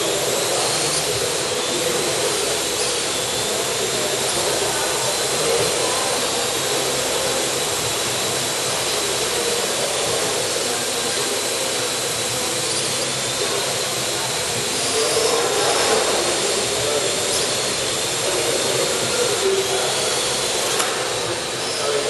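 Parrot AR.Drone 2.0 quadcopter's four brushless motors and propellers running steadily, a whirring hum whose pitch wavers slightly as the drone manoeuvres, with a thin high whine on top.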